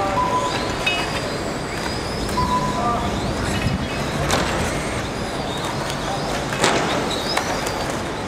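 Small remote-control car running across an obstacle course, with scattered clicks and a sharp knock about six and a half seconds in as it meets the obstacles.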